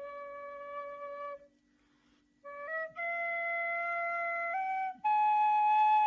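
Ney flute playing slow, long-held notes. A short break about a second and a half in, then the melody climbs step by step through sustained notes.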